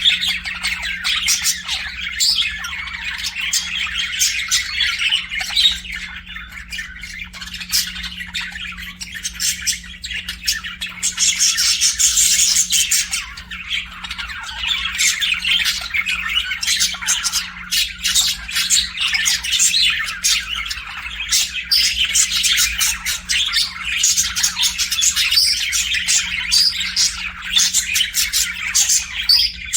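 A group of budgerigars chattering, warbling and squawking continuously, loudest about a third of the way in, over a faint steady low hum.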